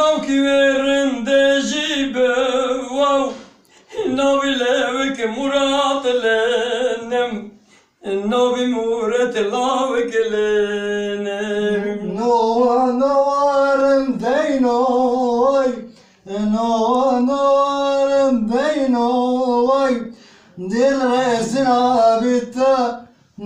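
Two men singing a duet unaccompanied, in about six long, wavering phrases of a few seconds each, separated by short breaths.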